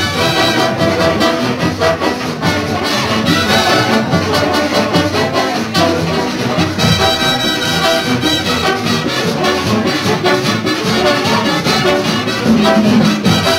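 Latin big band playing loud brass-led music, horns over a steady percussion beat.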